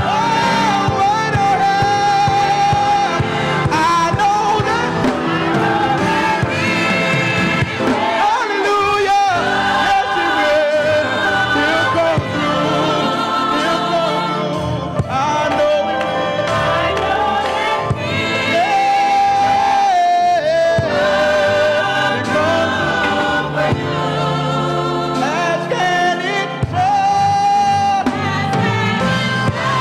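A gospel choir singing with instrumental backing, sung notes held and sliding between phrases over a steady bass accompaniment.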